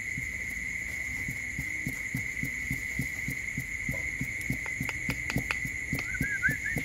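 Dog panting in quick, even breaths, about three a second. A steady high insect drone runs underneath. Sharp clicks and a few short high squeaks come near the end.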